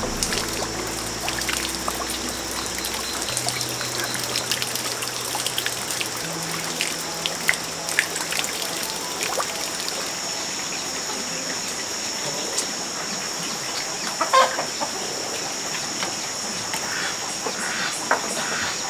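Evening farmyard ambience: a chicken clucking, most clearly about fourteen seconds in, over a steady high-pitched drone and scattered small clicks.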